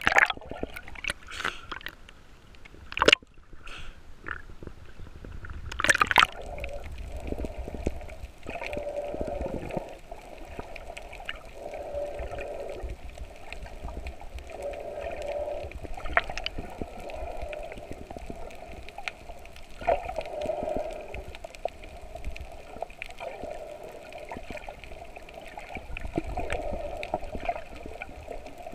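Water heard through an underwater camera housing: muffled sloshing and gurgling, with a few sharp splashes in the first six seconds as the camera moves just under the surface, then a steadier gurgle that swells and fades every few seconds.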